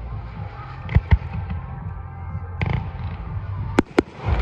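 Fireworks display: aerial shells bursting with sharp bangs, a pair about a second in, another near the middle, and two sharp cracks close together near the end, over a steady low rumble.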